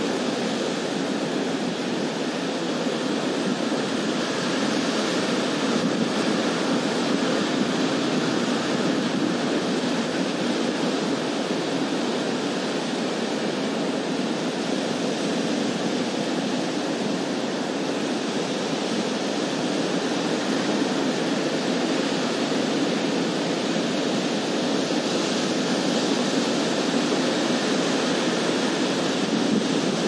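Ocean surf breaking on a sandy shore in a steady, unbroken wash of noise, with wind blowing over it.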